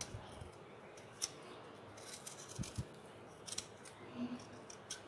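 Small steel kitchen knife shaving the green skin off a strip of watermelon rind: faint, irregular crisp scraping and snipping strokes, with two soft knocks about two and a half seconds in.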